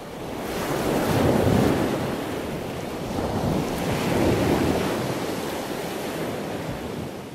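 Ocean surf sound effect: a rushing wash of waves that swells twice, about a second and a half in and again around four seconds, then fades out near the end.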